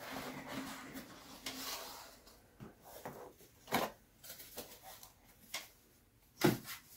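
A cardboard box lid sliding off the box with a rubbing scrape for about two seconds, then scattered light knocks and clicks as a thin wooden sheet is lifted out and handled, with a duller thud near the end.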